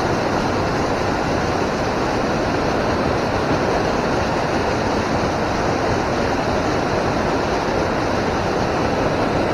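Steady rush of river water pouring over a spillway, an even noise with no breaks.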